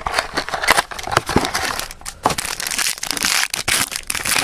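Crinkling and crackling of a plastic wrapper and cardboard being handled and torn open as a sealed trading-card box and its pack are opened, in a run of irregular rustles and sharp crackles.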